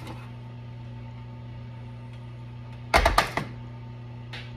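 A steady low hum with a short clatter of sharp knocks about three seconds in, as a metal baking sheet of roasted chicken and potatoes is handled on the counter.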